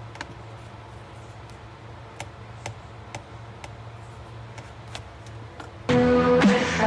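Typing on a MacBook Air laptop keyboard: scattered, unhurried key clicks over a low steady hum. Loud music starts suddenly near the end.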